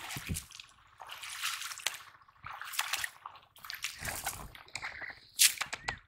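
Wet cast net being hauled out of shallow pond water and handled: water dripping and sloshing off the mesh, with irregular wet rustles and squelches and a louder sharp burst near the end.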